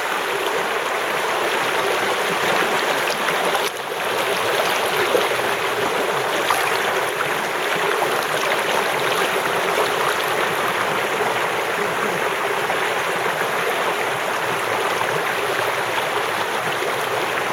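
Creek water rushing steadily, a continuous broad hiss with no pauses.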